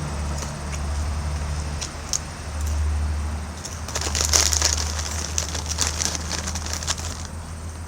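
Crunching and crinkling of someone eating Doritos Flamin' Hot Nacho tortilla chips from a bag, irregular crackly bursts that are busiest in the second half, over a steady low hum.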